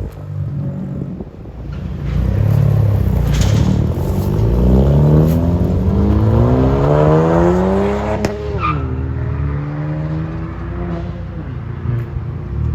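2021 Honda Civic Sport engine revved through its exhaust with the rear muffler and resonator both deleted. The pitch climbs steadily for about six seconds, drops sharply when the throttle is released, settles lower, and begins to rise again near the end.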